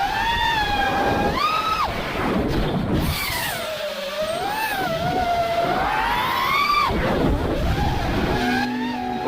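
FPV drone's brushless motors whining, the pitch rising and falling repeatedly as the throttle changes, over a low rushing noise.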